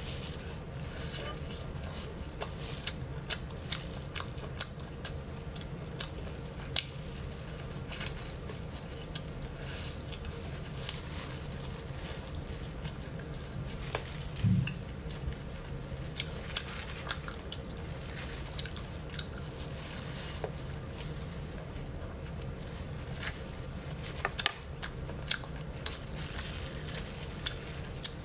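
Close-miked chewing and wet mouth sounds of a person eating braised pork chunks: small smacks and clicks scattered throughout over a steady low hum, with one short, louder low thud about halfway through.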